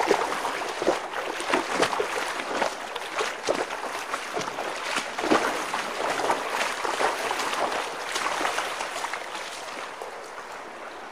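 Boots wading through shallow, muddy river water, each step a sloshing splash in an irregular run.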